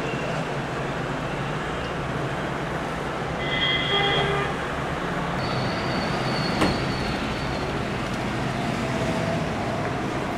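Steady city traffic rumble. A vehicle horn sounds briefly about four seconds in, and a thin high squeal follows from about five and a half to seven and a half seconds, with a single click in the middle of it.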